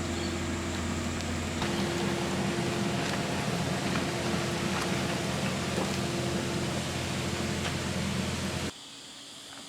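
A machine running steadily: a motor hum under a loud hiss. It shifts slightly about a second and a half in and cuts off suddenly near the end.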